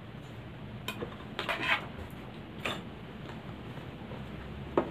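A few light clicks and taps as small hard objects are handled on a wooden sewing-machine table: one about a second in, a quick cluster soon after, and more near the end.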